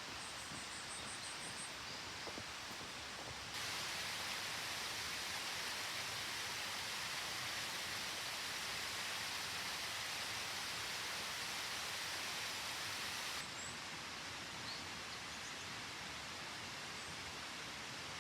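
Steady rushing of a clear stream and waterfall, getting louder and brighter about three and a half seconds in and dropping back abruptly near fourteen seconds. Faint high chirps in the first second or so.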